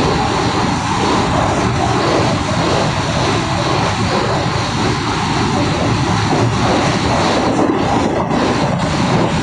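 Mumbai suburban electric local train running at speed, a loud steady rush of wheel and wind noise, with a few clacks near the end.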